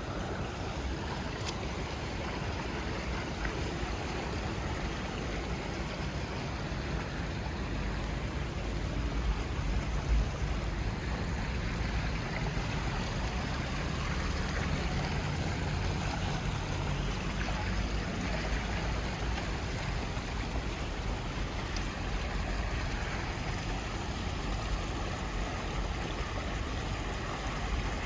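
Steady rain falling in a wet city street, an even hiss over a low rumble.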